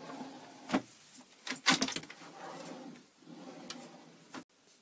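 Large kitchen drawers in a motorhome being slid open and shut, with a few sharp knocks as they stop or close.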